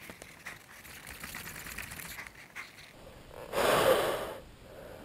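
Faint rustling and scuffing, then, about three and a half seconds in, one loud heavy breath close to the microphone from a rider straining at a stuck dirt bike.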